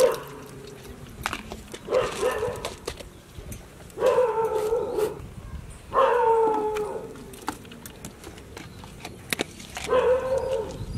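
An animal calling four times, each call drawn out for about a second and falling slightly in pitch, with light clicks in between as whole spices drop into a metal tub.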